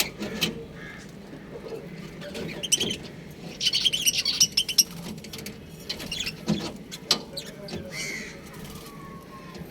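Budgerigars chirping and chattering in quick high bursts, busiest about three to five seconds in, with scattered single chirps and short clicks between.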